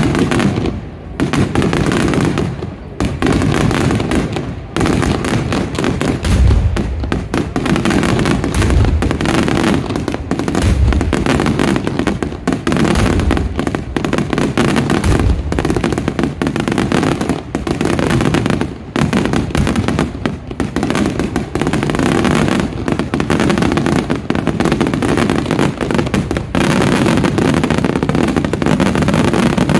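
Aerial fireworks display in a rapid barrage: dense, overlapping bangs and crackling shells with no pause, and deeper booms mixed in from about six to sixteen seconds in.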